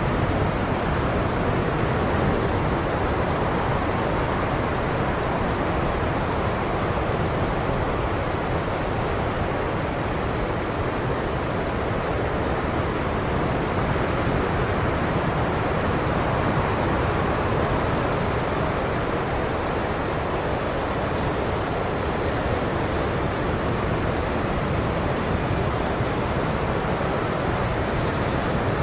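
Steady ocean surf washing on a beach, a continuous even rush of waves with no single breaker standing out. A faint high-pitched pulsing repeats about one and a half times a second.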